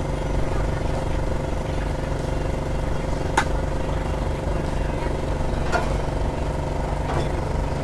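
A small engine running at a steady speed, a constant hum that does not rise or fall, with three sharp clicks at about three and a half, six and seven seconds in.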